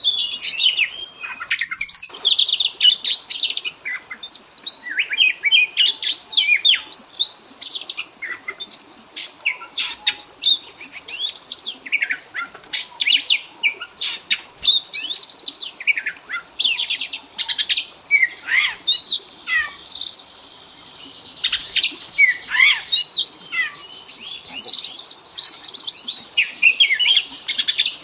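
Oriental magpie-robin (kacer) song: a fast, varied run of loud whistles, chirps and trills with short pauses, including a brief lull about two-thirds of the way through.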